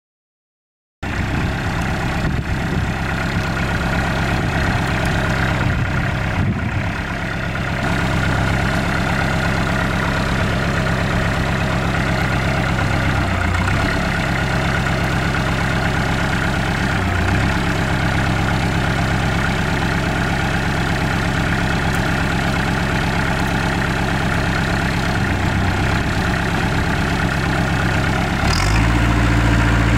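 TYM T431 compact tractor's diesel engine running steadily, starting about a second in. Near the end its low note changes and gets a little louder.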